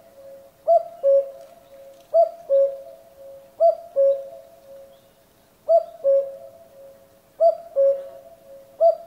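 Common cuckoo calling its two-note "cu-coo", the first note higher than the second. The call comes six times, roughly every one and a half to two seconds.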